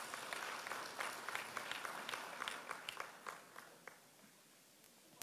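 Audience applauding faintly, the clapping thinning to a few scattered claps and dying away about four seconds in.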